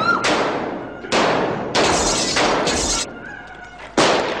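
Dishes smashing one after another: about five loud crashes of breaking crockery in four seconds, each dying away quickly.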